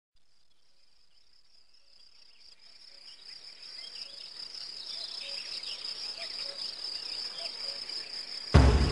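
Crickets trilling steadily in a high pulsing chorus that fades in and grows louder, with faint chirps joining from about halfway. About half a second before the end, music comes in suddenly with a deep low note.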